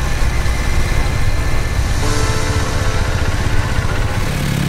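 Triumph motorcycle engine running as the bike rides up close, a pulsing low rumble with background music laid under it.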